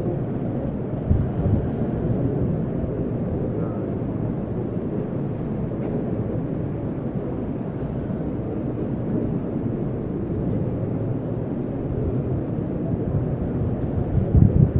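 Steady low rumble of room noise in a large hall, with a dull thump about a second in and a couple more near the end.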